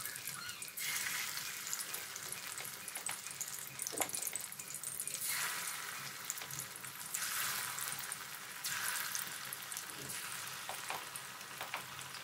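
Marinated chicken pieces frying in hot sunflower oil: a steady sizzle dotted with small crackles.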